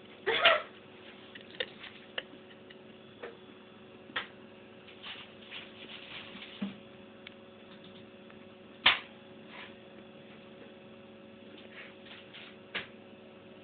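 A cat sneezing in short, sharp bursts: the loudest about half a second in and again about nine seconds in, with another near the end and fainter short bursts in between. A faint steady hum runs underneath.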